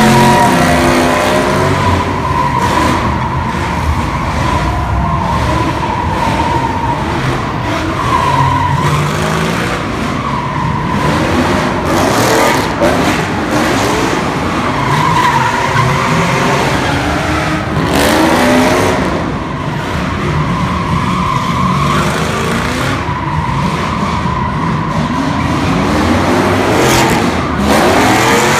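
A car's tires squealing steadily as it spins donuts, its engine revving up again and again every few seconds.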